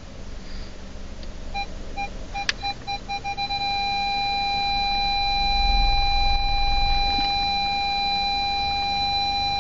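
Volkswagen Passat B6 parking distance control warning as the car reverses toward an obstacle. Single beeps start about a second and a half in and quicken, then run together into one continuous tone from about three and a half seconds on. The continuous tone is the signal that the obstacle is very close, in the stop zone.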